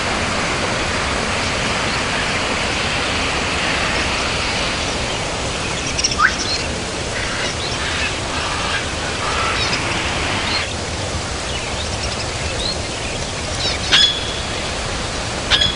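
Steady rushing of a waterfall, with small birds chirping over it in the second half, including a sharp call near the end.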